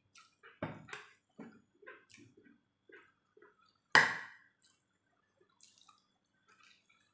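Eating sounds: wet chewing and lip smacks, with light scrapes and taps of a metal spoon on a plate. One sharp ringing clink of the spoon against the plate about four seconds in is the loudest sound.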